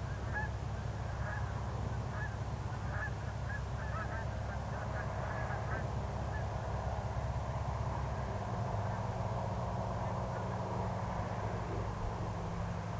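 Cessna 172S Skyhawk SP's four-cylinder Lycoming engine droning at reduced power on final approach, heard as a steady low hum from a distance, with a steadier tone joining about eight seconds in as it comes nearer. A scatter of short high calls sounds over it in the first half.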